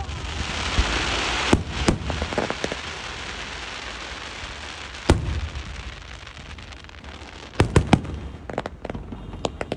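Fireworks going off: a hissing crackle that fades over the first couple of seconds, then separate bangs, a loud one about five seconds in and a quick run of three near the end, with smaller pops between.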